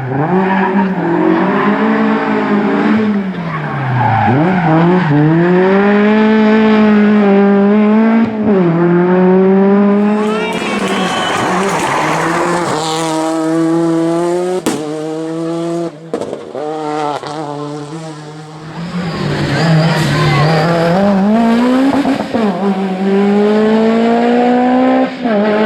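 Rally car engine run hard, its pitch climbing and dropping again and again as it goes up through the gears and lifts off, with a couple of sharp cracks midway.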